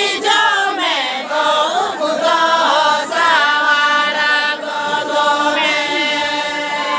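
A group of voices singing a Santali folk song together in a chant-like melody, the voices settling into long held notes in the second half.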